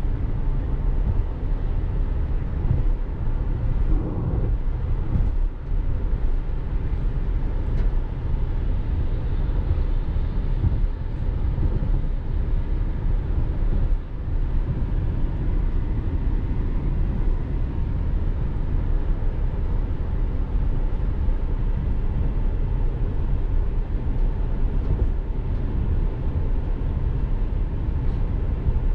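Car driving: a steady low rumble of road and engine noise that holds even throughout.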